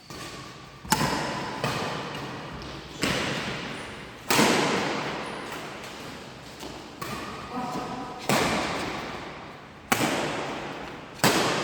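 Badminton rackets striking a shuttlecock in a rally, a sharp smack about every one to one and a half seconds, each echoing in a large hall. People's voices are heard between the hits.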